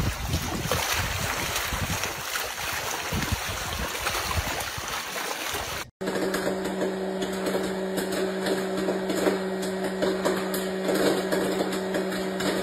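Wind rushing over the microphone for about six seconds. Then it cuts abruptly to a steady low machine hum, one droning pitch with a fainter overtone, likely a kitchen appliance running.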